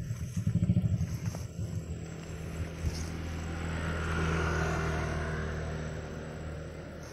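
A motor vehicle engine running steadily with a low hum, growing louder about four seconds in and then fading away, as if passing by.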